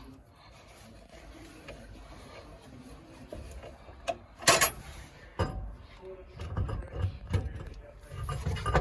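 Hand work on a car jack and wheel during a tyre change: a few sharp metal knocks, the loudest about halfway through, then low, uneven thuds and clunks as the car is jacked up to bring the hub in line with the wheel bolts.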